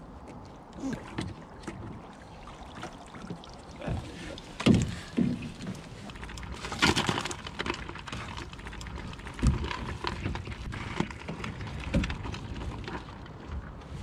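Crayfish traps being handled in a small boat: irregular knocks and thumps against the hull with some water sloshing, and a longer rattling clatter about seven seconds in.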